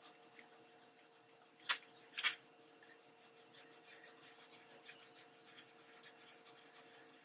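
Soft cloth rubbing back and forth over an alcohol-and-water-dampened, embossed magazine image, lifting the ink to distress it. Faint short strokes come about two a second, with two louder scrubs about two seconds in.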